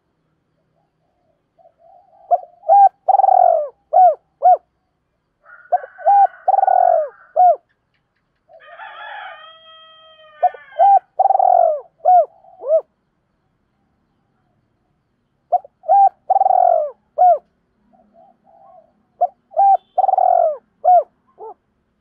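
Spotted dove cooing its song, five phrases of arched, rolling coos a few seconds apart, with a brief buzzier call about halfway through. It is a caged decoy bird's call, used to lure wild spotted doves.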